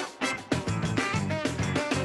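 Upbeat band music with electric guitar, bass and a drum kit keeping a quick beat.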